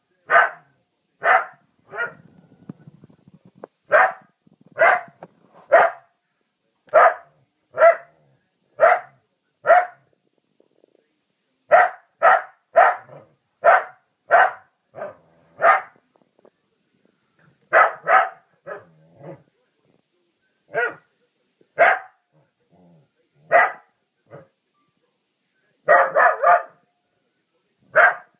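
Pet dog barking over and over in single sharp barks, about one a second in runs with short pauses, and a quick burst of three or four barks near the end. It is barking at the picture of a dog on a wall calendar, taking it for a rival.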